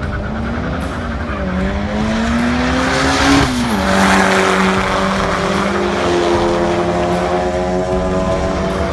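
Car engine accelerating hard, its pitch climbing, dropping sharply at a gear change about three and a half seconds in, then climbing again in the next gear.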